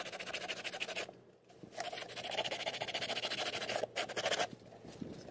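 Hand tool scraping back and forth along the edge of a cured fiberglass motorcycle fairing to trim it smooth, in quick repeated strokes with short pauses about a second in and near the end.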